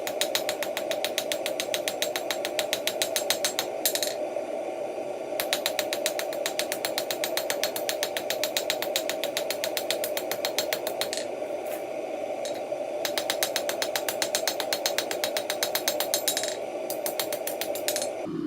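Hand hammer striking hot steel on an anvil in fast, regular blows, rounding off the top of a rat tail hinge, in several runs broken by short pauses. A steady hum runs underneath.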